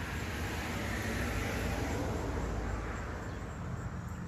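A car driving past, its tyre and engine noise swelling to a peak a second or two in and then fading away.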